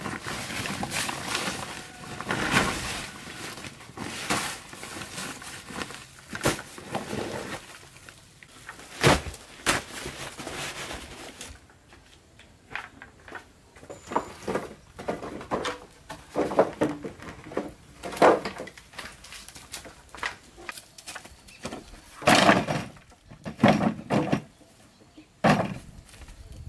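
A plastic tarp rustling and crackling as it is spread out, then a run of separate knocks and clatters of wooden poles and old planks being picked up and set down.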